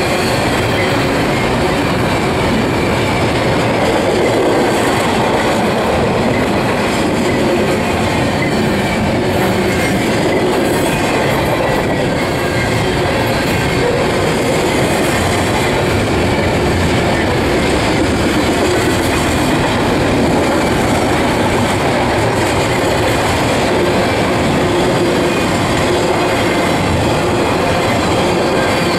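Double-stack container well cars of a Union Pacific intermodal train rolling past close by: a steady, loud noise of steel wheels running on the rails.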